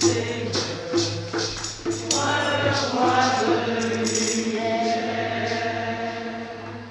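Church congregation and choir singing a hymn with hand percussion. The percussion strikes stop about two seconds in, leaving long held sung notes that fade toward the end as the song closes.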